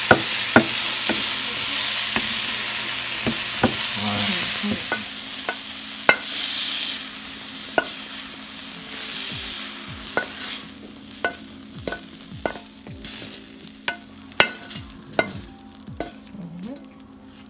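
Diced bell peppers, onion and garlic sizzling in a hot metal frying pan while a wooden spatula stirs and clicks against the pan. About ten seconds in, the sizzle fades, leaving scattered taps and scrapes as the spatula scrapes the vegetables out of the pan into a bowl.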